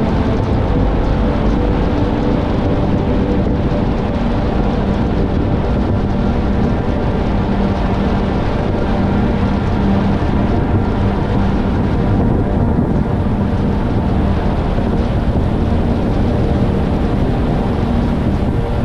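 Steady rush of wind and tyre noise from a car driving along a sealed road, picked up by a GoPro mounted on the outside of the car, with a low steady hum underneath.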